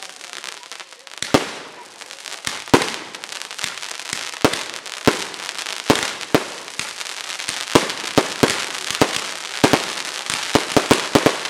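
Fireworks display: aerial shells bursting with sharp bangs at uneven intervals, coming faster in the second half, over a continuous hissing crackle of burning stars and rising comets.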